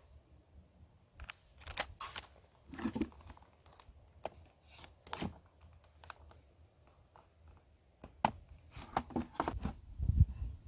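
Handling noise: irregular clicks, crinkles and light knocks of things being worked by hand, busier with a few low thumps near the end.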